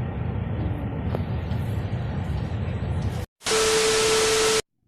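Steady low rumbling road noise, as from riding in a vehicle, cuts off abruptly about three seconds in. It is followed by a loud burst of static-like hiss with a steady hum-like tone running through it. The burst lasts about a second and stops suddenly.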